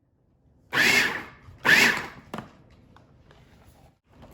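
Food processor pulsed twice, its motor spinning up and down in two short bursts about a second apart, chopping chicken into cream cheese and mayonnaise.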